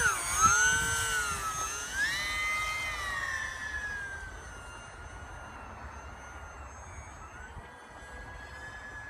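Electric motor and propeller of a ParkZone UMX Icon A5 model plane whining, rising and falling in pitch with the throttle as it takes off from snow, then fading to a fainter, steadier whine as it climbs away about four seconds in.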